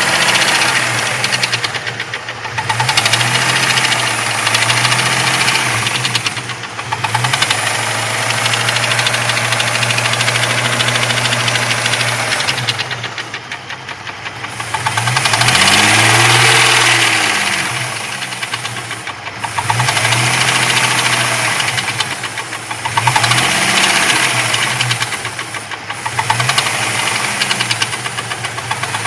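Jeep 4.0-litre straight-six engine, hot, revved up and down several times with a rapid knocking running through it: the knocking noise the engine makes when hot.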